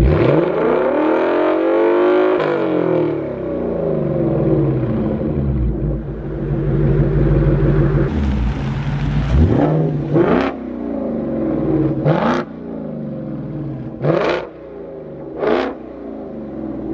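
Ford Mustang GT's 5.0 L V8 through a Corsa Xtreme cat-back exhaust with a double H-pipe, warm and idling, revved hard right away and falling back a couple of seconds later. It then swells in a slower rev and ends with four short, sharp throttle blips about every second and a half, settling back to idle between them.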